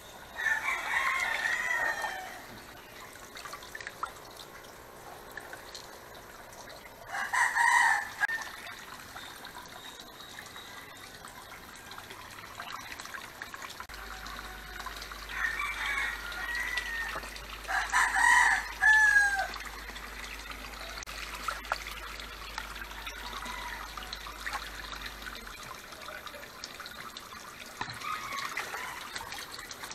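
Rooster crowing several times, each crow a second or two long, over a steady trickle of water running into a concrete koi tank.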